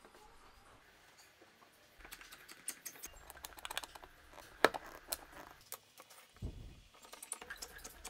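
Faint clicks and taps of plywood pieces and a steel rod being handled on a workbench. After a quiet start comes a run of small clicks, with one sharp click about four and a half seconds in, then a dull thump a little after six seconds.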